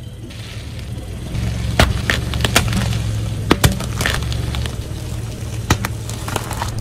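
A car tyre slowly rolls onto and crushes a ball wrapped in coloured rubber bands, over a low steady engine rumble. Several sharp snaps and cracks come as the bands break and the ball splits open under the wheel, spilling its red liquid.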